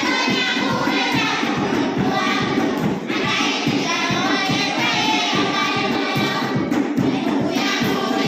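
A group of children singing a traditional dance song together in unison, over a steady thumping beat.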